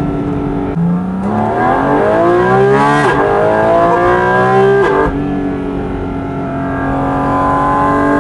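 Porsche GT4 RS's naturally aspirated 4.0-litre flat-six, fed through individual throttle bodies, accelerating hard with intake suction and stock exhaust heard from the cabin. It revs up, upshifts about three seconds in and climbs again, then eases off about five seconds in to a steady cruising note.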